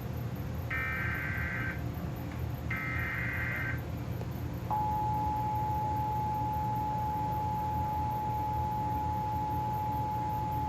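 Emergency Alert System tones broadcast over TV for a tornado warning. Two short bursts of SAME header data tones, about a second each and a second apart, are followed about five seconds in by the steady two-note EAS attention signal, which keeps sounding.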